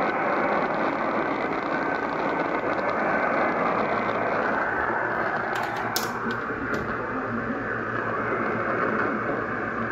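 Static hiss from a portable AM radio's speaker, with a few sharp crackles about six seconds in.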